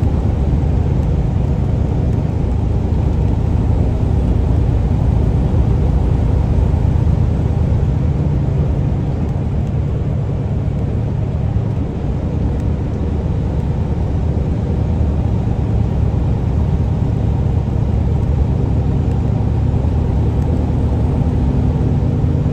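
Semi truck's diesel engine and tyre noise heard from inside the cab while cruising at freeway speed: a steady low drone.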